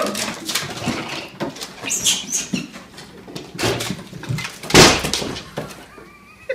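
Irregular knocks, rustling and clatter, with one loud thump about five seconds in.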